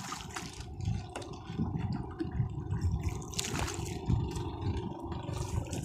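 Water splashing and dripping off a fishing net as it is hauled in hand over hand over a boat's side, in irregular rushes over a steady low rumble.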